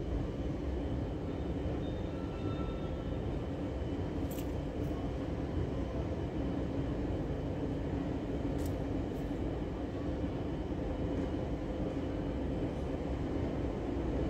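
Steady low rumble and hum of an underground railway station, with a few faint sharp clicks, growing slightly louder near the end.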